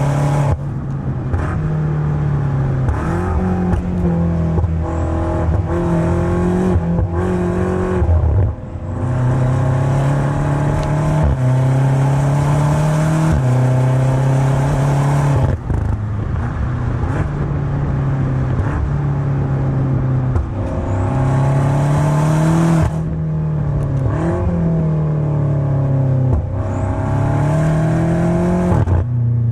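BMW M5 (F90) 4.4-litre twin-turbo V8 exhaust while driving. The engine note climbs with the revs and drops back again and again, with short breaks between pulls.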